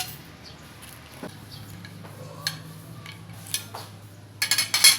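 Cutlery and dishes clinking while eating: a few scattered clinks, then a quick run of clatter and scraping near the end, over a steady low hum.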